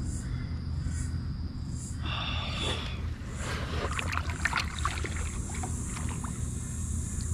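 Irregular light clicks and knocks of gear being handled in a fishing kayak, over a steady low rumble.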